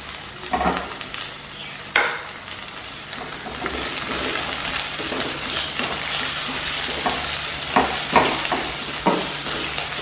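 Chopped spring onions, garlic, curry leaves and green chillies sizzling in hot oil in a non-stick kadhai as a spatula stirs them, with a few short knocks of the spatula against the pan. The sizzle grows louder a few seconds in.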